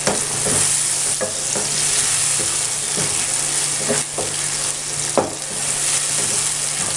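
Chicken pieces frying and sizzling in an oily tomato-and-spice masala in a non-stick pan, while a wooden spoon stirs and now and then knocks and scrapes against the pan.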